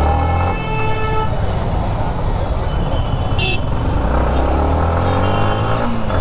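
Motorcycle engine running at low speed in dense city traffic, with vehicle horns honking several times: one near the start, a higher one about halfway, and more near the end.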